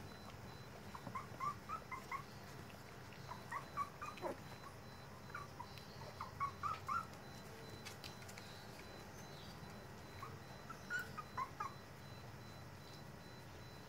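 Puppies whimpering: clusters of short high-pitched squeaks, with one longer whine falling in pitch about four seconds in, over a faint steady low hum.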